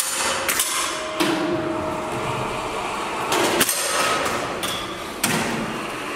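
Air rifles firing: four sharp cracks at uneven intervals, each with a short ring after it.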